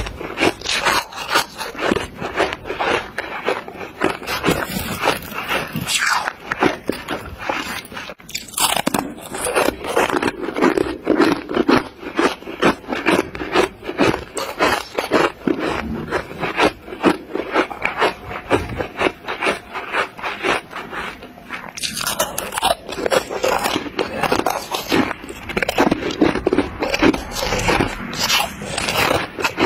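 Refrozen freezer frost being bitten and chewed: a close, continuous run of crisp crunches, several a second, with a short lull about eight seconds in.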